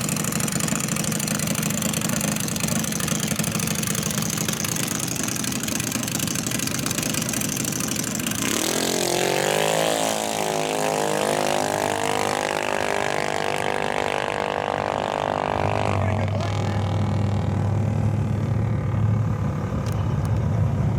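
Junior dragster's single-cylinder engine running loud, then accelerating hard on a pass, its pitch rising steadily for about seven seconds before it cuts off. A low steady hum remains afterwards.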